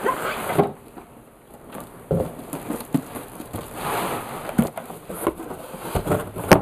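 Packing being handled inside a cardboard shipping carton: crinkly rustling of bubble wrap and packing paper, with a few sharp knocks and bumps of cardboard as a boxed item is lifted out.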